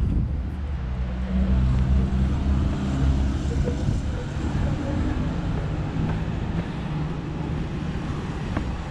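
Motor vehicle engine running close by: a steady low hum that shifts in pitch a few times, over street traffic noise.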